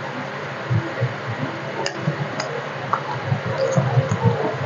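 Close-miked chewing of roti and taro root curry: irregular soft low thuds with a few small clicks, over a steady hiss.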